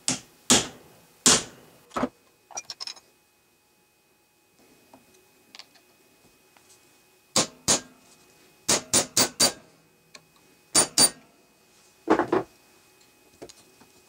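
Hammer blows on a flat nail punch, crimping a cable lug onto a battery cable. The lug is braced in an aluminum angle in a vise. There are four sharp blows in the first two seconds, a pause, then a run of about ten quicker blows in small groups.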